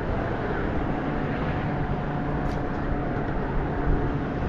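Steady motor hum over a low rumble, with a few faint steady tones and no sudden sounds.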